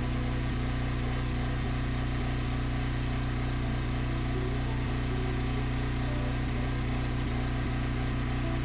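An engine running steadily at one constant speed, a low even hum with no change in pitch.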